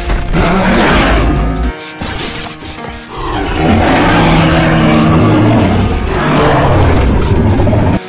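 Loud dramatic soundtrack music layered with dinosaur-roar sound effects for an animated Giganotosaurus. After a brief dip about two seconds in, a long drawn-out roar fills the second half.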